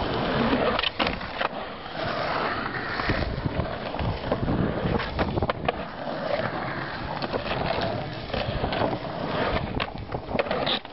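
Skateboard wheels rolling over rough concrete, a steady gritty rumble broken by several sharp clacks of the board.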